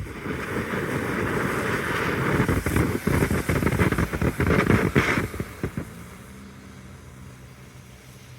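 Mad Ox Molten Metal firework fountain burning: a hissing, sputtering spray that starts suddenly, grows louder with many sharp pops and crackles, then fades out about six seconds in.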